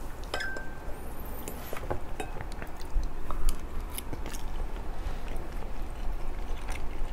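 A metal fork clinking and scraping in a ceramic bowl of pasta, with a short ring just after the start, then chewing of a mouthful of pasta close to a clip-on microphone.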